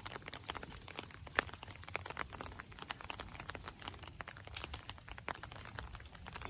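Footsteps on wet ground, with irregular short clicks, over a steady high-pitched insect drone outdoors.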